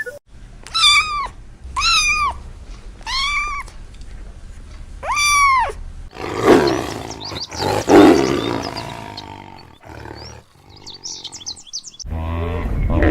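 A series of animal calls: four drawn-out calls that rise and fall in pitch, then a rougher, lower call, then a few brief high chirps.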